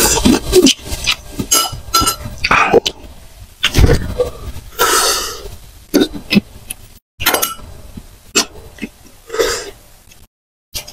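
Close-miked eating of raw oysters: wet chewing, smacking and slurping in irregular bursts, with a few longer sucking or swallowing sounds. A light clink of a spoon comes near the end.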